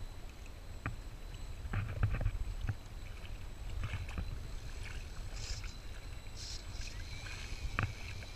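Shallow lake water sloshing and splashing around a floatplane's floats in a series of short splashes, over a steady low rumble.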